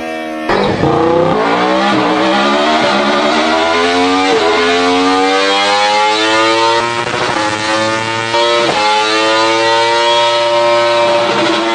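Superbike engine accelerating hard through the gears: the pitch climbs in each gear and drops sharply at each of about four upshifts.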